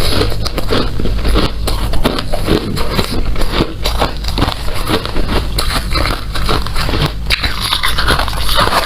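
Hard ice being bitten and chewed close to the microphone: a dense, irregular stream of loud crunches and cracks.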